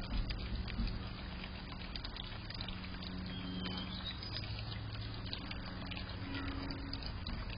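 A steady low machine hum with scattered faint clicks, and one short high chirp about three and a half seconds in.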